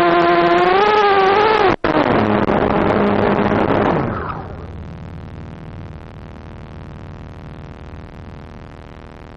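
Small FPV quadcopter's brushless motors whining, the pitch wavering with throttle. About two seconds in the sound cuts out for an instant, then turns into a rougher noisy rush as the quad comes down into the grass. It dies away about four seconds in when the motors stop, leaving a steady hiss.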